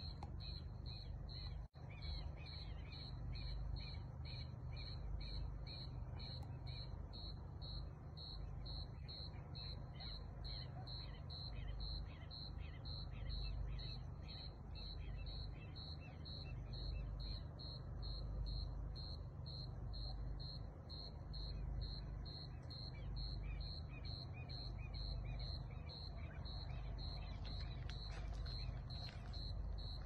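Crickets chirping in a steady, even rhythm of about two high chirps a second, over a low rumble. All sound cuts out very briefly about two seconds in.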